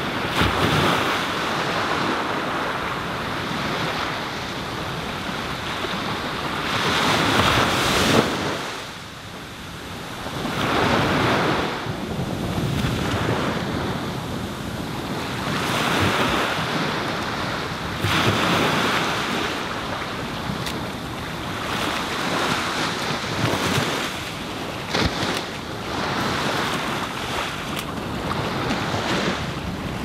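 Small ocean waves breaking on a sandy beach and washing up the sand, the surf swelling and easing every few seconds.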